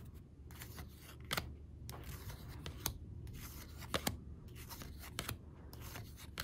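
Cardboard trading cards being flipped through by hand, one at a time: soft sliding rubs of card against card, with a short sharp click about once a second as each card comes off the stack.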